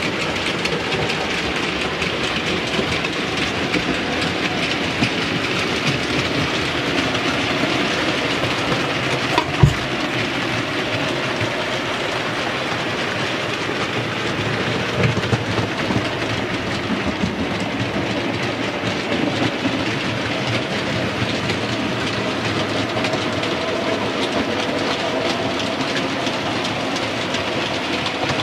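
OO gauge model trains running on the layout: a model locomotive and goods wagons rolling steadily along the track, with a single sharp knock about ten seconds in and a few smaller knocks around fifteen seconds.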